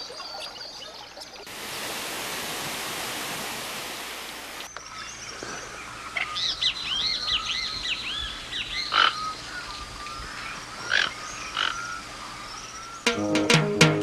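Rainforest animal calls, frog-like: a run of quick, repeated chirps, then a few short, sharp croaks. They follow about three seconds of a steady rushing noise that cuts in and out abruptly. Music starts near the end.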